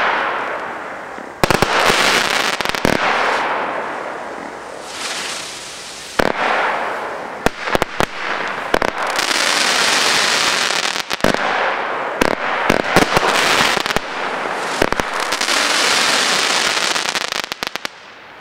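Weco Fata Morgana firework cake firing a run of shots. Each shot starts with a sharp bang and is followed by several seconds of hissing, with scattered crackles. A quick flurry of cracks comes near the end before the firing stops.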